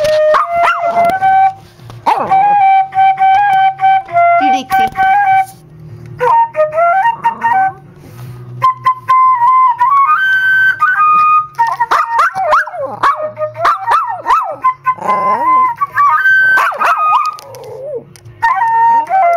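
A flute played in held notes that step from pitch to pitch, while a small dog howls and whines along, its voice wavering and sliding up and down around the notes.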